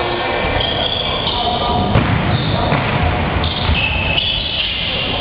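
Basketball game in a large gym: the ball thudding on the court amid players' and spectators' voices, with short high squeaks, all echoing around the hall.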